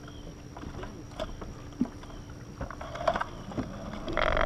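Scattered knocks and clicks of people moving about and handling gear on a small fishing boat, over a faint steady hum. A louder burst of rushing noise comes near the end.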